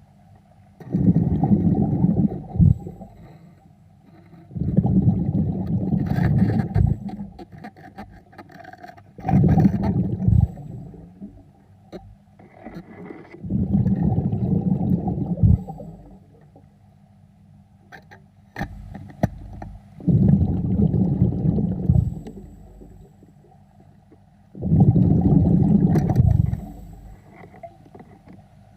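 Scuba diver breathing underwater through a regulator: six gurgling rushes of exhaled bubbles, each lasting about two seconds and coming every four to five seconds, with quieter inhalations and a few sharp clicks in between.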